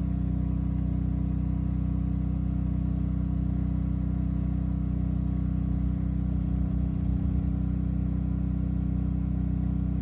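Honda 2.2 generator engine running steadily under heavy load, heard from inside the caravan as a constant low hum. It is supplying about 1800 W to charge the lithium batteries.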